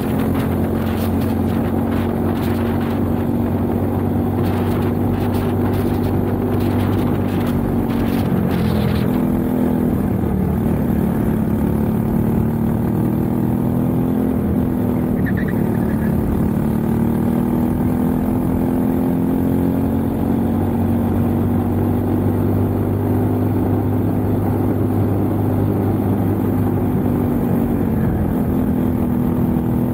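Briggs & Stratton LO206 single-cylinder four-stroke kart engine running hard on track, heard from on board. Its pitch drops about ten seconds in as the kart slows for a corner, then climbs steadily as it accelerates again, with a short dip near the end.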